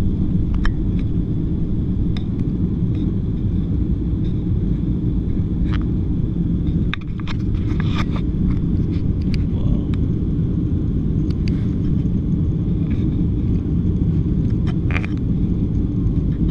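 Cabin noise inside a jet airliner climbing after takeoff: a steady low rumble of engines and airflow, with scattered small clicks and rattles.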